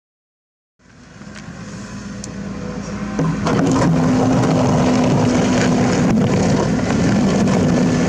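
Kobelco SK75 mini excavator's diesel engine running under load while it digs into a dirt pile, with a few knocks from the bucket working the soil. The sound fades in about a second in and reaches a steady, loud level about three seconds in.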